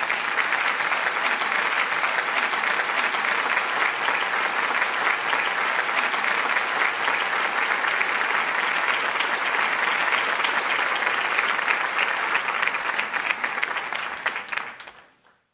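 Applause: dense, even clapping right after a song ends, fading out near the end.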